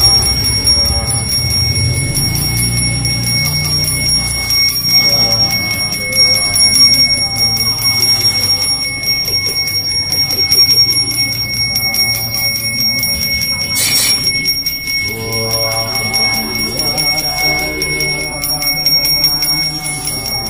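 Balinese pemangku's genta, a priest's handbell, rung continuously with a steady high ringing, while a man chants mantras over it. There is one sharp strike about two-thirds of the way through.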